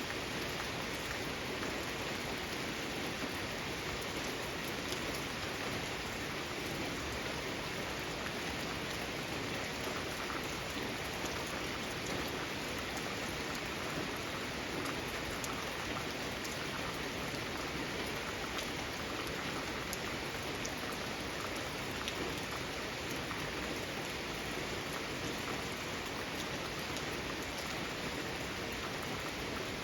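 Steady rain falling, with countless small drops ticking on surfaces.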